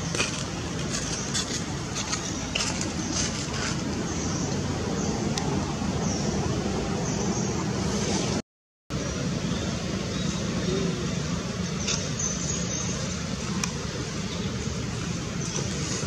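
Steady outdoor background noise, an even hiss over a low hum, with a sudden cut to silence for about half a second midway.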